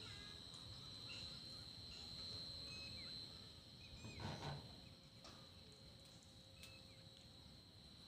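Faint rural ambience: insects keep up a steady high-pitched whine, with scattered short bird chirps. A brief rustle comes about four seconds in.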